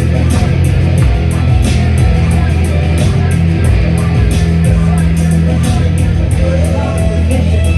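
A rock band playing: guitar over bass and drums, loud, with a steady beat.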